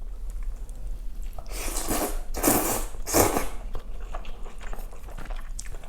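Close-miked eating sounds from a person eating: three loud rushing sounds, each about half a second long, come between about one and a half and three and a half seconds in, with quieter mouth clicks around them.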